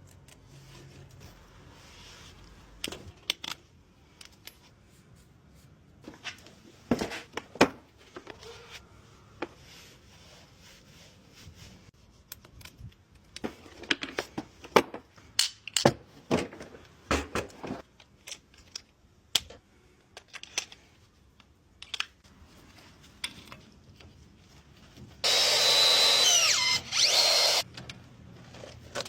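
Scattered knocks and clicks of tools and parts being handled, then a power tool runs loudly for about two seconds with one short break near the end.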